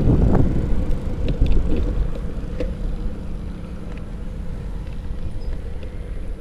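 Low wind-and-road rumble on the microphone of a camera riding on a moving bicycle, strongest over the first two seconds and easing a little, with a few faint clicks.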